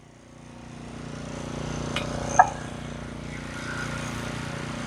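A small gas engine, likely a pressure washer's, running steadily under a hiss of spray that builds over the first two seconds, with two sharp knocks at about two and two and a half seconds in.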